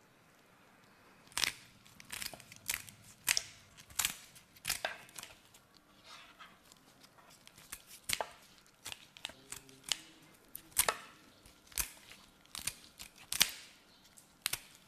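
Kitchen scissors cutting a raw squab into pieces: a long, uneven series of sharp snips, about one or two a second, starting after a second or so.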